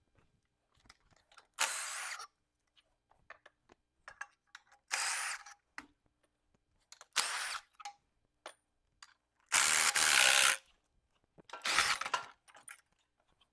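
Handheld cordless power tool spinning up in five short bursts, the fourth the longest and loudest, backing out the bolts that hold an engine to its engine stand.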